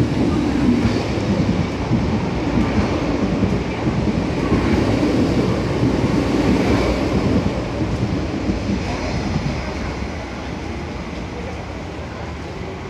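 MTR East Rail line electric train running through the station at speed without stopping: steady rumble of wheels on rails, fading away over the last few seconds as the train leaves.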